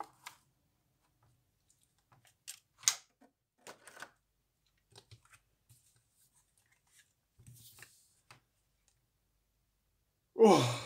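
Clear plastic blister packaging crackling and clicking in scattered short bursts as a model locomotive is pried out of its moulded tray. A short, falling vocal sound comes near the end, the loudest moment.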